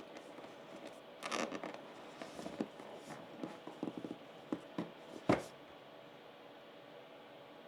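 Packaging being handled: rustling and scraping, a short tearing sound about a second in, then scattered small clicks and one sharper knock about five seconds in.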